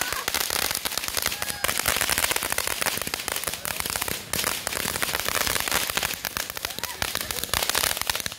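Ground fountain firework spraying sparks, with dense, rapid crackling throughout.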